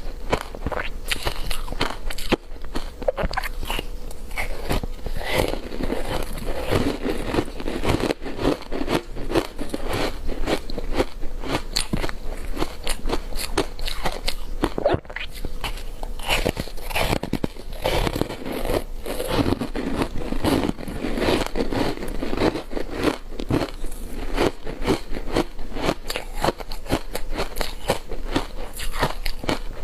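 Ice made with matcha green-tea powder being bitten and chewed: continuous, irregular crunching and crackling.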